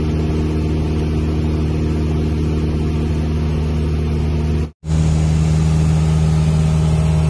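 Steady drone of a single-engine light aircraft's piston engine and propeller, heard inside the cabin in cruise. It cuts out for a split second a little past the middle, then resumes with a stronger low hum.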